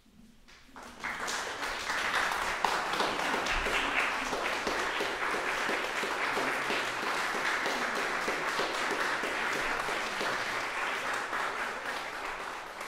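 Audience applauding, breaking out about a second in and holding steady, then thinning near the end.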